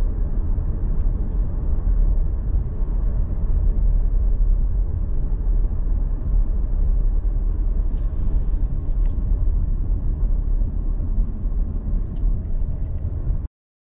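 Steady low rumble of a vehicle driving along a road, with a few faint ticks about eight and nine seconds in. It cuts off suddenly near the end.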